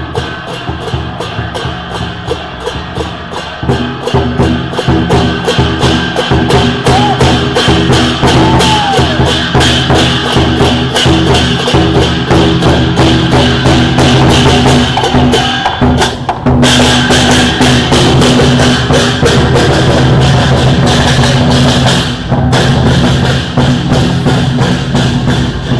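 Chinese procession percussion: brass hand cymbals clashed in a fast, steady beat together with a drum. A steady low hum joins in about four seconds in and gets louder.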